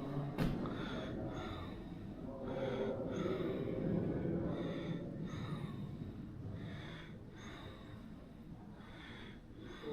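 A person breathing hard, with loud breaths every second or so, and a sharp knock about half a second in.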